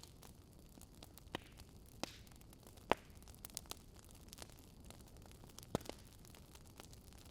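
Wood fire crackling: scattered sharp pops and snaps, a few louder ones about three seconds in and just before six seconds, over a faint low steady hiss.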